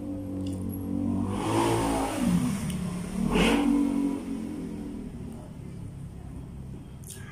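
A motor vehicle's engine going by, growing louder from about a second in, its pitch dropping and then rising again as it revs, before fading away.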